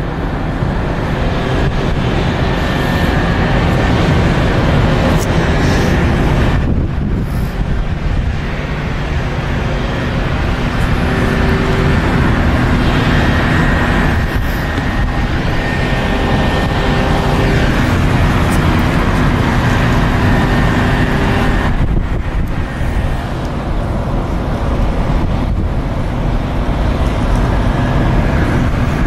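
Jet engines of an Airbus A321 running at low power as it taxis after landing: a steady, loud rush with faint whining tones held through it.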